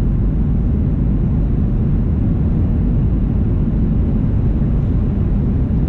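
Cabin noise of a Boeing 737-800 on final approach with flaps down, heard from a window seat: a steady low rumble of airflow and its CFM56-7B engines.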